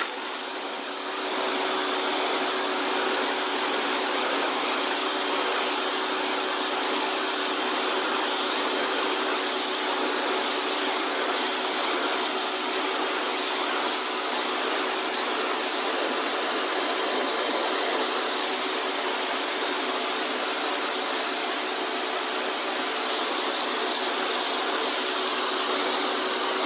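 1800 W electric pressure washer running, its high-pressure jet spraying water onto concrete to strip green algae. The spray is a steady hiss over a steady motor-and-pump hum.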